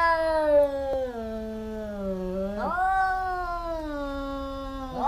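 Two domestic cats yowling at each other in a threatening face-off before a fight: long, drawn-out yowls, each sliding slowly down in pitch. A second yowl starts about halfway through and a third right at the end.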